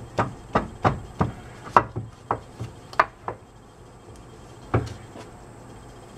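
Sharp knocks, about three a second for the first few seconds and one more near the end, as a new CV axle's inner splined end is worked and pushed into a 2007 Chevy Impala's transmission until it seats.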